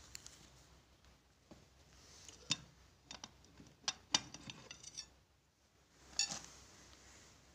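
Irregular sharp clicks and light clinks of small hard objects being handled, a cluster of them in the middle and one more near the end.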